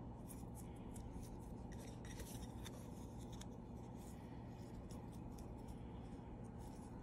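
Fingers squeezing and rubbing a small soft rubbery hamster mochi squishy toy: quick faint crackles, scratches and sticky clicks, thickest around the middle, over a steady low hum.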